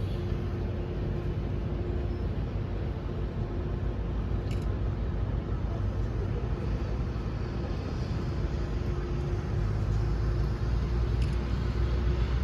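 Steady running noise of a vehicle in motion: a low rumble under an even hiss, with a faint steady hum.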